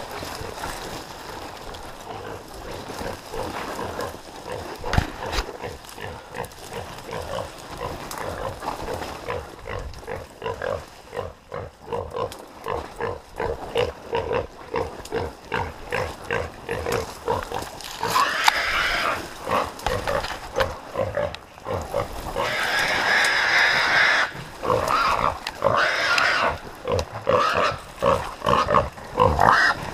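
Feral hog squealing as catch dogs hold it, loud repeated squeals that start a little past the middle and get louder toward the end. Before that, footsteps and brush sound regularly as someone runs through a pine thicket toward it.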